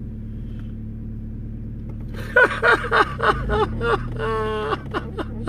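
Vehicle engine idling with a steady low hum. About two seconds in, a quick run of short, downward-bending pitched cries comes over it and ends with a longer held cry before the hum carries on alone.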